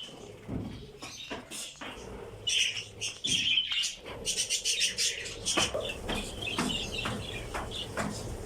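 A group of Australian parrots chirping and chattering, with many short, high calls overlapping. The calls are busiest a few seconds in.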